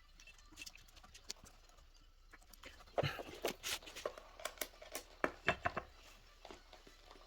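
Scattered light clicks and taps of small objects being handled on a workbench, most of them bunched together between about three and six seconds in.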